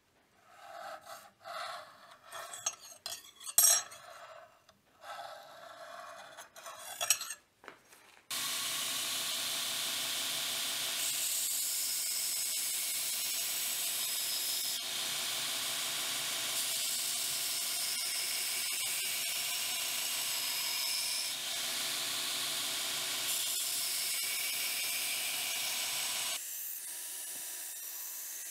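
A height gauge's scriber scratching reference lines into 5160 steel knife blade edge and spine, in several short strokes with one sharp click. About eight seconds in, a belt grinder takes over with a steady hiss as the blade, clamped in a bevel jig, is ground against the belt to rough in the bevels; the sound drops a little a couple of seconds before the end.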